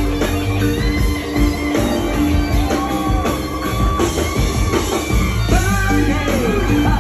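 Live rock band playing: electric guitars over drums, with held and bending guitar notes.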